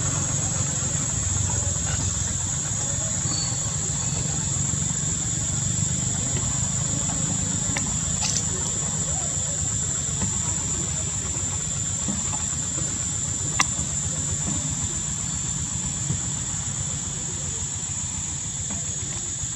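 Steady outdoor background noise: a constant high-pitched hum over a low rumble, with two sharp clicks about eight and thirteen seconds in.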